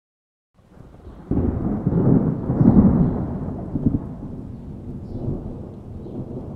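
Thunder sound effect: a low rumble that breaks into a sudden loud crack about a second in, swells, and then slowly rolls away.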